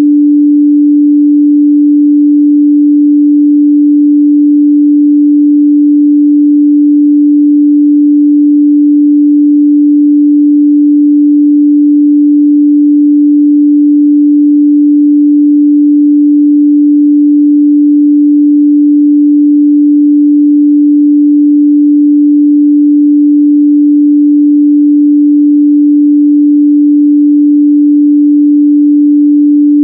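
Continuous 293 Hz sine-wave test tone, a single pure pitch held steady and loud without any change.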